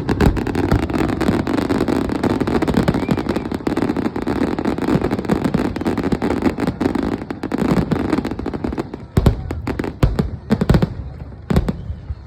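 Fireworks display: a dense, rapid crackling of many small bursts that thins out about nine seconds in into a few separate, louder bangs.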